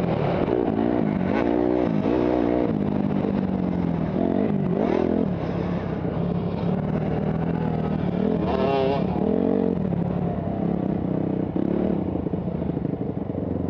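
Motocross dirt bike engines at race pace, the rider's own bike revving up and dropping back over and over with throttle and gear changes. Other bikes' engines overlap close by near the start, and there is a sharp rev-up and fall about eight seconds in.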